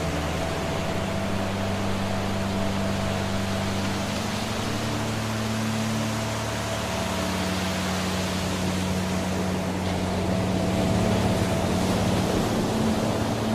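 Steady rush of falling water from a waterfall, under a soft ambient music drone of low held notes that change a few times.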